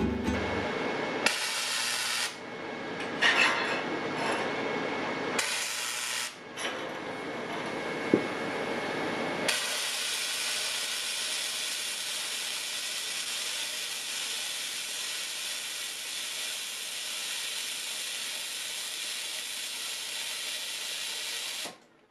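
Flux-core wire welder arc crackling and hissing, first in a few short bursts and then in one long continuous bead. The arc cuts off suddenly near the end as the circuit breaker trips with the welder pushed to almost full amps.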